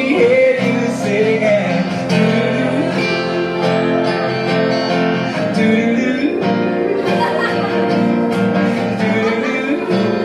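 A man singing live into a microphone to a strummed acoustic guitar, the music running without a break.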